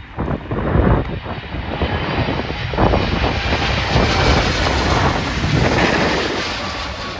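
Boeing 777 twin-jet airliner passing low overhead on final approach, gear down. The engine noise swells as it nears, is loudest about four to six seconds in, then starts to ease.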